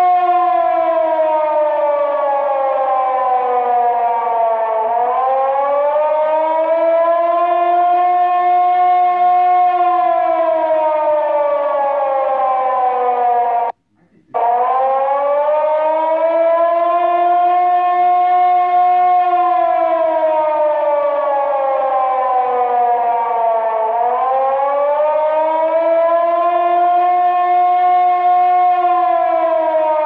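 Looped Carter air-raid siren sound effect from a siren app, wailing: the pitch slowly rises, holds and falls again about every ten seconds. It cuts out for about half a second around fourteen seconds in, then starts again low and rises.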